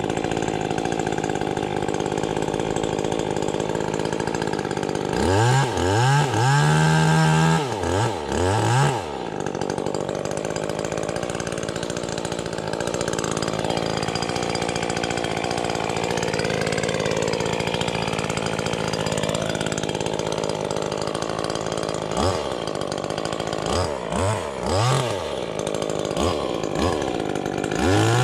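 Chainsaw idling steadily, with its throttle blipped in several short revs about five seconds in and again a few seconds before the end, then held at high revs at the very end.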